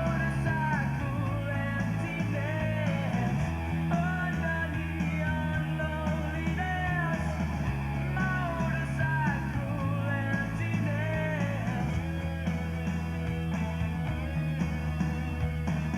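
Rock music with a steady beat, sustained bass and a bending lead guitar or vocal melody.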